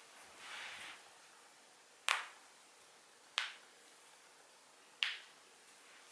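Human joints being cracked: three sharp pops, spaced about a second and a half apart, after a brief soft rustle of movement.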